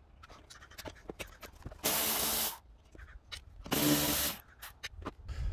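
Compact cordless ratchet running in two short bursts, a little over a second apart, spinning off the 13 or 15 mm windshield wiper arm nuts. Light clicks of tool handling around them.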